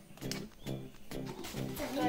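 Background music: a repeating pattern of low pitched notes, about two a second.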